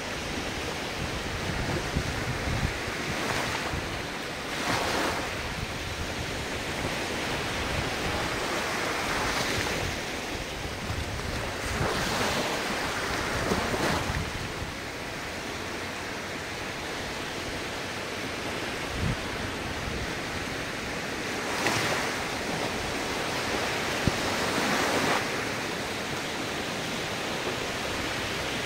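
Ocean surf: waves breaking and washing in one after another, each surge swelling and fading over a second or two, with a steady wash of sea noise between them.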